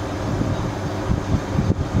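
A steady, low mechanical hum with wind noise on the microphone.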